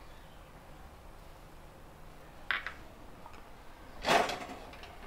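Brief clatters of kitchen utensils being handled beside an iron tawa: a short one about two and a half seconds in and a louder one about four seconds in, over a low steady background.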